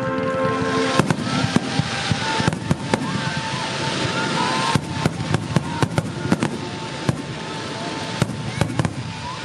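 Aerial fireworks bursting at close range: a rapid, irregular series of sharp bangs and crackles over a continuous crackling hiss, with the bangs densest about halfway through.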